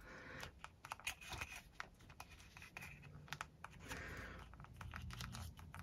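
Faint, scattered small clicks and scratches of fingers handling a plastic sculpted hair piece and fitting it onto a 1/6 scale action figure's head, where it attaches by magnet.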